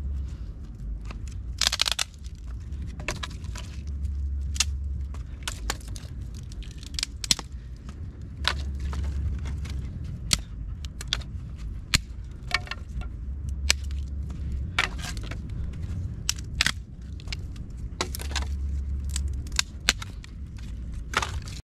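Dry branches being snapped and broken apart by hand, a string of sharp cracks and crunches at irregular intervals, with small twigs rattling in between.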